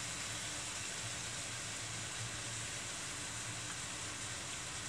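Chicken and broccoli frying in a pan: a steady, quiet sizzle, with a faint low hum underneath.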